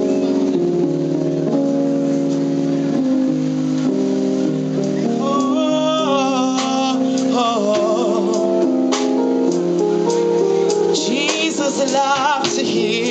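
Gospel praise song: held instrumental chords change step by step, and a solo singing voice comes in about five seconds in with wavering vibrato and runs, returning near the end.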